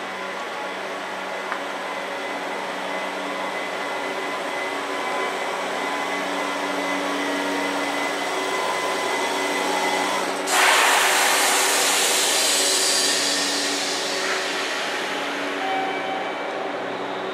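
Stabled JR Central 311 series electric train's onboard equipment humming steadily with several steady tones. About ten seconds in, a sudden loud hiss of compressed air being released cuts in and fades away over a few seconds.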